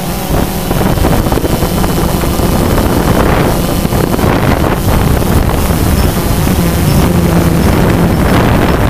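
DJI Phantom 2 quadcopter's motors and propellers running steadily in flight, a constant motor hum under heavy wind rushing over the onboard camera's microphone.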